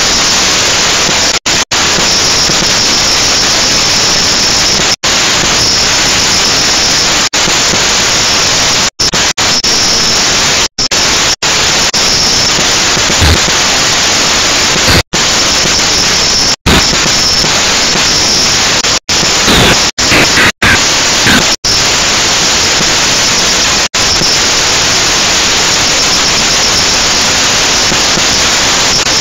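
Loud, steady static-like hiss from a toy quadcopter's onboard camera audio while it flies: the motors and propeller wash come through the tiny microphone as a wall of noise. It is broken by over a dozen short, sudden dropouts to silence.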